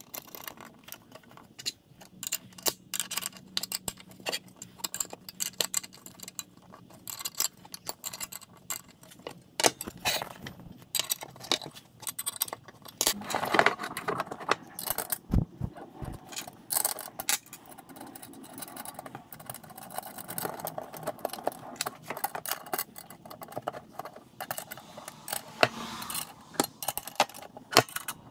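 Steel parts of a spring-loaded lift-up table hinge clinking and rattling as it is assembled by hand, with bolts being fitted through the arms and torsion bar. Scattered irregular metal clicks and scrapes, with a few heavier knocks midway.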